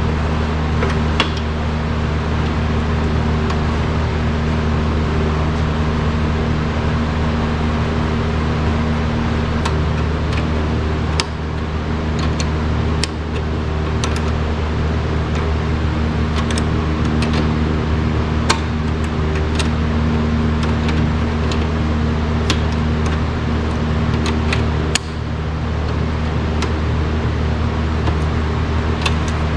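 A steady low mechanical hum with a few light clicks and taps scattered through it.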